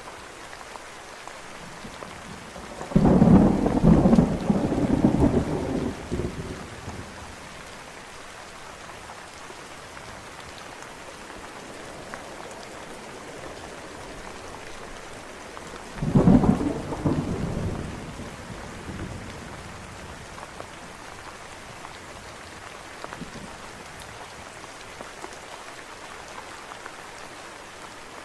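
Steady rain with two claps of thunder. The first and louder one hits about three seconds in and crackles on for about three seconds; a shorter one follows a little past halfway.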